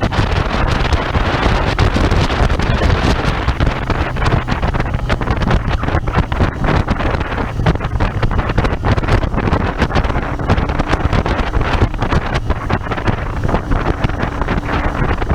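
Royal Enfield Interceptor 650's parallel-twin engine running steadily under way, heavily overlaid by wind buffeting the microphone.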